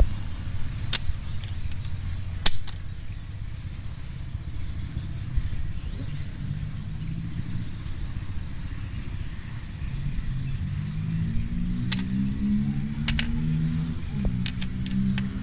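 Sharp clicks and a crack of hard ballast stone knocking and snapping as it is pressed and broken by hand, the loudest about two and a half seconds in, over a steady low rumble. Near the end a low droning tone comes in, climbing in steps and then holding steady.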